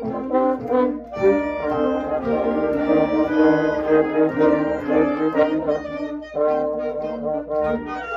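School band playing in rehearsal, brass and saxophones holding sustained notes together, breaking off briefly about a second in and again after six seconds before playing on.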